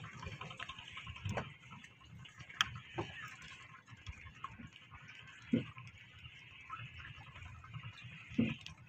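Faint, irregular light ticks and knocks over a low hiss, with a few sharper clicks spread unevenly through it.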